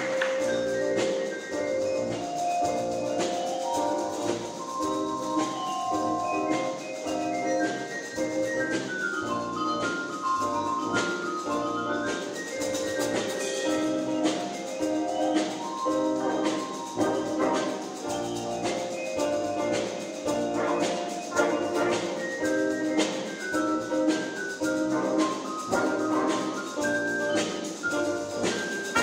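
Middle school jazz ensemble playing live: a busy line of short, distinct pitched notes over the band.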